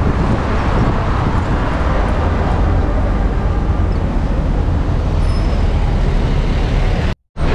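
Steady city traffic noise heard from an open carriage moving in traffic, with a heavy low rumble throughout. The sound cuts out for a moment near the end.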